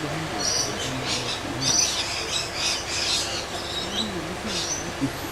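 Birds chirping: many short, high calls following one another in quick succession.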